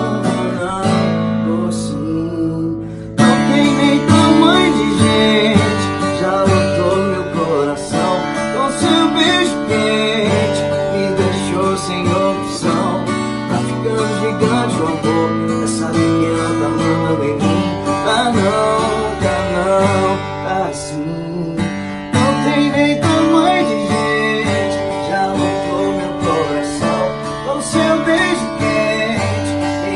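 Steel-string acoustic guitar playing an instrumental sertanejo passage, mixing picked notes and strums. It starts quieter, jumps to a fuller, louder playing about three seconds in, dips briefly about 22 seconds in, then builds again.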